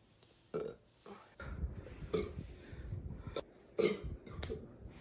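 A young woman burping several times in short, separate burps.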